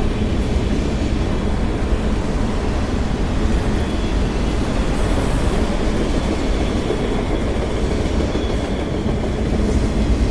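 CSX freight train of autorack cars rolling past at close range: a steady, loud rumble of steel wheels on the rails.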